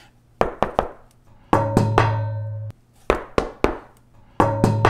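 Knuckle knocks on a sheet-aluminium bulkhead panel lined with Damplifier Pro sound-deadening mat: a knock test. The knocks come in quick groups of three and four. Twice a knock leaves a low ring of about a second that stops abruptly.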